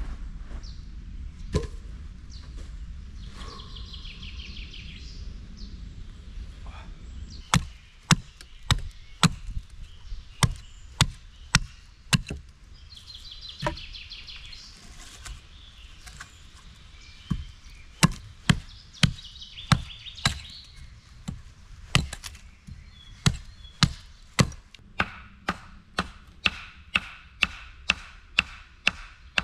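An axe chopping wood, shaping points on wooden stakes: sharp strikes start about seven seconds in, uneven at first, then come about two a second near the end. Birds sing in the background.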